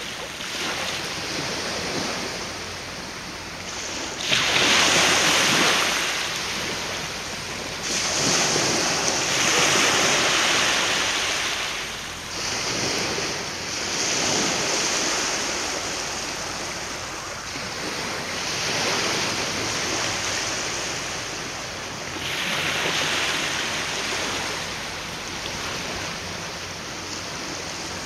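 Waves washing ashore in repeated surges of hiss, swelling and falling back every few seconds.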